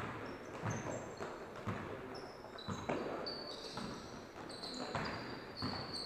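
Basketball dribbled on a hardwood gym floor, with bounces about every half second, alongside short high-pitched squeaks of basketball shoes on the court.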